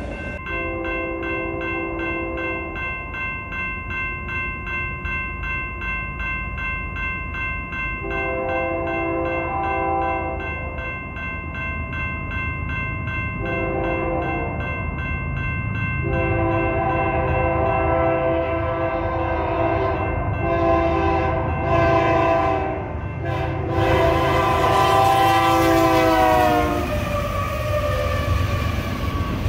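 A railroad crossing bell rings steadily while an approaching freight locomotive sounds its horn in a series of long blasts. Near the end the horn's pitch drops as the locomotive passes close by at speed, and the rumble of the train rolling through takes over.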